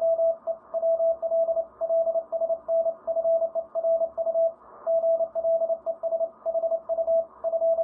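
A single mid-pitched beep tone keyed on and off in Morse-code dits and dahs over steady radio hiss: the 'boop, boop, boop' that the operator identifies as his power meter.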